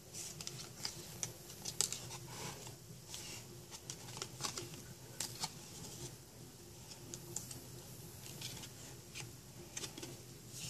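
Thick cardboard flaps of a lift-the-flap board book being lifted, bent back and pressed down by hand: irregular light clicks, taps and scrapes of card, over a faint steady low hum.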